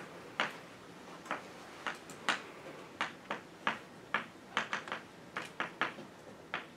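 Chalk writing on a blackboard: a quick, uneven string of short, sharp taps and strokes, about two or three a second.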